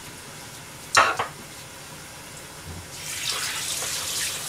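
A dish or utensil clatters sharply once about a second in, then a kitchen tap runs from about three seconds in.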